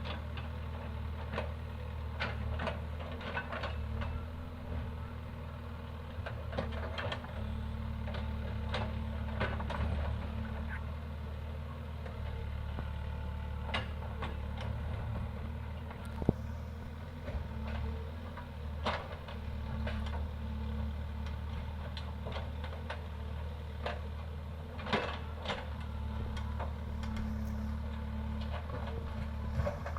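Case 851EX backhoe loader's diesel engine running steadily, with scattered knocks and clanks on top and one sharp knock about halfway through.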